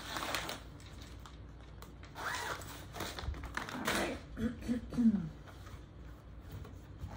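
Cross-stitch kit packets and papers handled on a table: rustling with scattered light clicks and taps as one kit is set aside and the next picked up.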